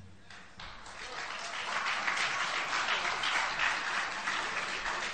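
Audience applauding, the clapping swelling about half a second in and thinning out toward the end.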